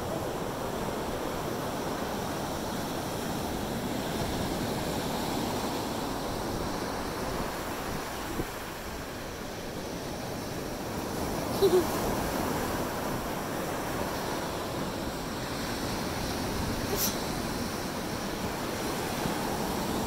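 Ocean surf breaking and washing up the beach in a steady rush. A short, sharp sound stands out just past the middle, and a brief click comes a few seconds later.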